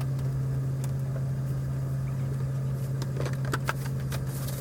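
Steady low drone of the Buccoo Reef ferry's engines running at sea, with a few short faint squeaks and clicks about three seconds in.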